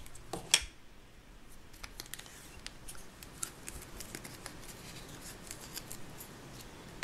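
Plastic crank handle of a Play-Doh Candy Cyclone toy being turned, giving a run of light, irregular plastic clicks and ticks several times a second as Play-Doh candy balls are pushed out onto its plastic spiral chute.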